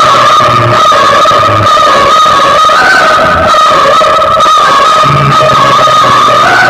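Music blasting very loud from a stacked DJ horn-speaker system: one long held high synth or vocal note, wavering slightly, over intermittent bass thumps.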